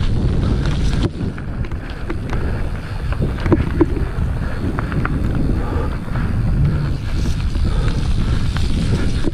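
Mountain bike riding over a rough dirt trail, with wind buffeting the camera microphone in a steady low rumble and the bike rattling in scattered clicks and knocks.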